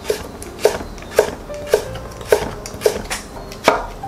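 Chef's knife slicing cucumber into thin strips on a wooden cutting board: a steady run of sharp blade-on-board knocks, about two a second, the last one a little louder.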